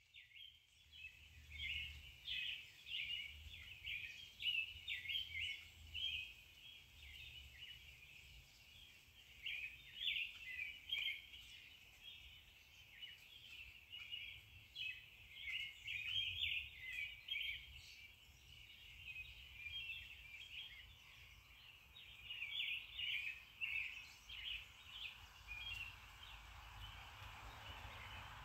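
Small birds chirping and twittering in quick clusters, on and off with short pauses, fairly quiet.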